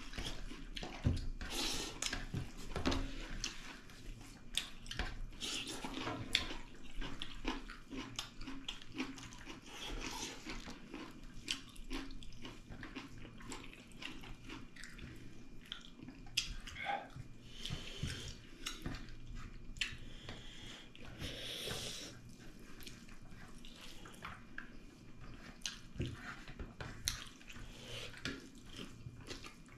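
Two people eating pork leg with dal and rice by hand: irregular wet chewing, smacking and slurping, with squelching as fingers mix the rice and dal on steel plates.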